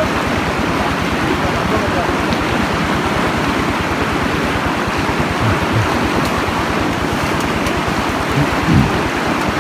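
Stream water rushing steadily, with a rapid low throbbing underneath.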